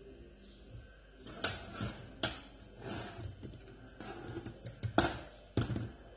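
Lemon being pressed on a hand lemon squeezer over a bowl: a handful of sharp clinks and knocks of the squeezer and dishware, irregularly spaced, the loudest about five seconds in.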